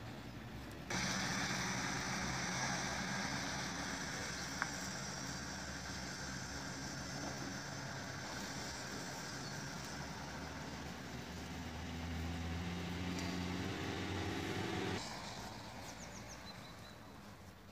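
A motor vehicle's engine running steadily. It comes in suddenly about a second in, its hum rises somewhat near the end, and it drops away abruptly about fifteen seconds in.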